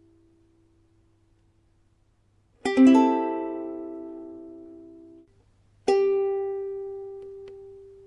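Ukulele plucked twice. A quick rolled chord comes about two and a half seconds in and rings until it is stopped short. A single pling follows about three seconds later and rings out, fading.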